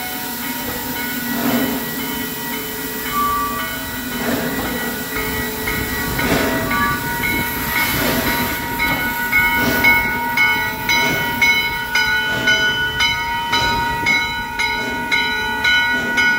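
Steam locomotive (a 2-6-6-2 articulated engine) moving slowly, its exhaust chuffing about once every second and a half over a steady steam hiss. A grade-crossing warning bell rings throughout, its strokes coming out clearly about twice a second from about ten seconds in.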